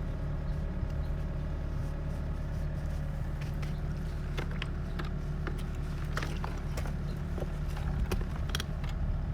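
An engine running steadily at idle, a low even hum, with scattered light clicks and knocks from work on the pipes.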